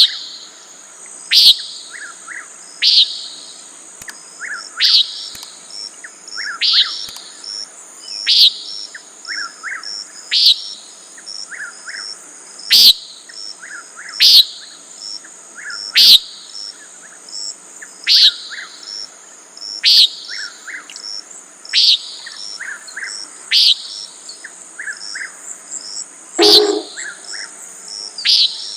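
Common nighthawk repeating its short, nasal peent call, about one call every one and a half to two seconds, over a steady high drone of insects. A low thump comes under one call near the end.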